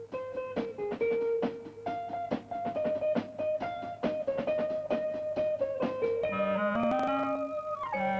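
Cartoon background music: plucked guitar notes over a quick, steady beat of light percussion. About six seconds in it changes to held notes with a low line sliding upward.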